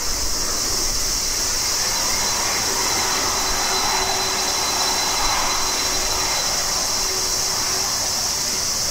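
Boeing 767 freighter's jet engines at taxi power: a steady whine with a high hiss.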